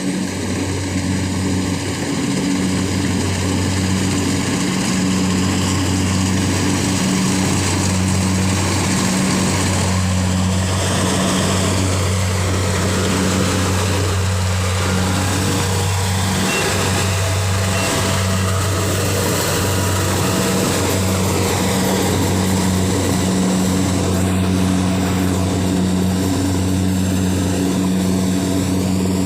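Kubota engine-driven rice thresher running steadily at a constant speed, a loud mechanical drone with a low hum.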